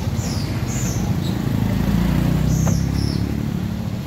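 Engines of cars passing slowly close by: a low, steady hum that swells about two to three seconds in. A few short, high chirps sound over it.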